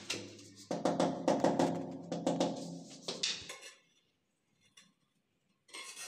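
Music with a drum beat and sustained tones for about three and a half seconds, then breaking off into a short silence. Near the end, light clinks of ceramic tile as a cut tile piece is set in place.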